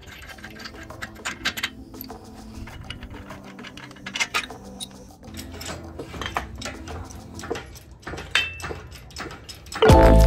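Scattered light clicks and taps of tools being handled, over faint steady tones. A louder burst of music comes in just before the end.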